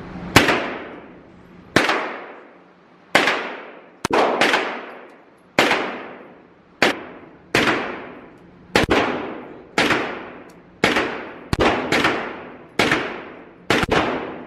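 Gunshots fired one at a time at an indoor shooting range, about fifteen at an uneven pace of roughly one a second. Each sharp crack trails off in a ringing echo from the range's walls.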